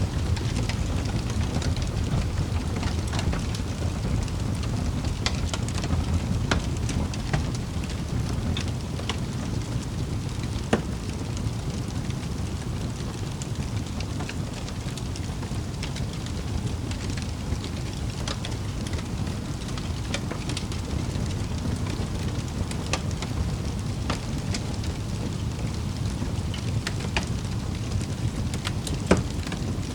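Wood fire burning in a fireplace: a steady low rumble with irregular sharp crackles and pops, two of them louder, about 11 seconds in and near the end.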